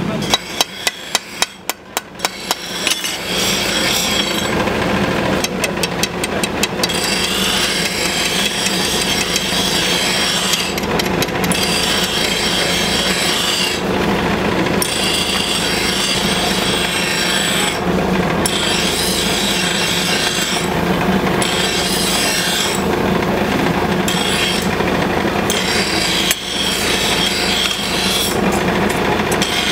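Forge fire under a forced-air blast: a steady rushing noise with a low hum that dips briefly every few seconds. A run of sharp clicks comes in the first few seconds.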